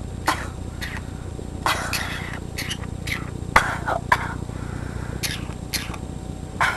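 Green-cheeked conure coughing: a string of about ten short, raspy coughs at uneven intervals, one longer one about two seconds in.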